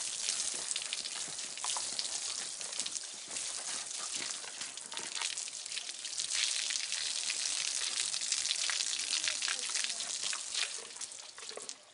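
Water spraying from a garden hose onto a horse's wet coat and splattering on the concrete yard as the horse is hosed down: a steady hiss with fine pattering, fading near the end.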